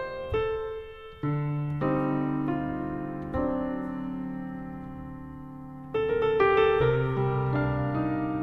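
Background piano music: slow chords and single notes, each struck and left to ring and fade before the next.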